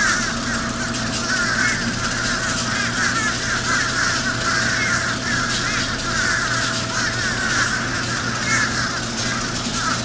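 A flock of crows cawing and scolding, many calls overlapping without a break, over a steady low hum; a thin steady tone in the hum stops about seven seconds in.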